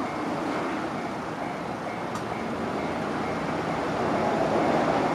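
Train running past over a level crossing, a steady rush of rolling noise that grows louder toward the end. The crossing's warning bell rings faintly behind it, about twice a second.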